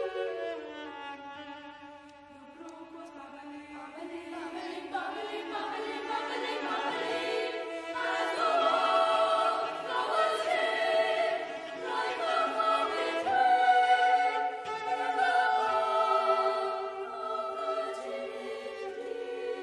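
Boys' choir singing a slow contemporary choral piece with a cello accompanying. It drops quiet about two seconds in, then swells to a full, loud sound through the middle.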